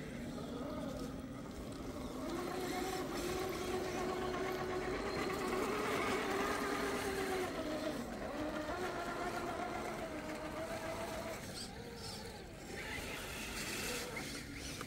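Electric motor and gearbox of an RC rock crawler whining as it drives, the pitch rising and falling with the throttle; loudest about midway.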